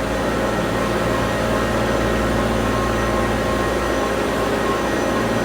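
Steady mechanical drone of airport background machinery, an even rushing noise with several steady hum tones and no change.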